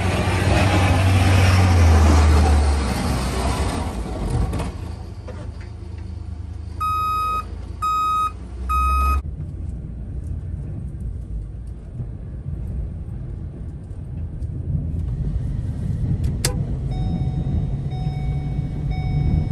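A snowplow truck goes by with its blade pushing snow: loud engine rumble and rushing noise that fade out about four seconds in. Then three evenly spaced electronic beeps, each about half a second long, followed by a quieter steady vehicle rumble with a single click near the end.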